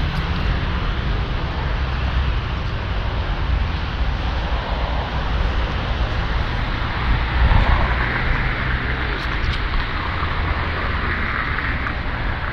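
Street traffic: a steady wash of car and engine noise with a low rumble, swelling briefly about halfway through as a vehicle passes closer.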